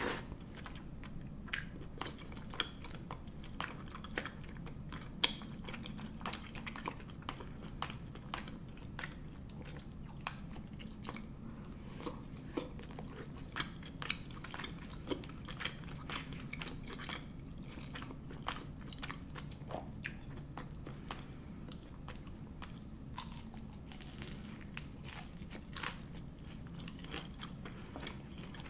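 Close-miked chewing of spicy Korean rice cakes (tteokbokki), with many small sharp mouth clicks and smacks over a steady low hum.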